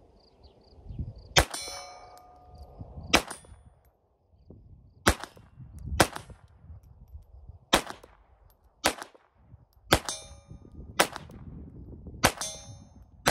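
GSG 1911 pistol in .22 LR firing about ten shots at a slow, uneven pace, one every second or two. Several shots are followed by the ringing clang of a steel target being hit.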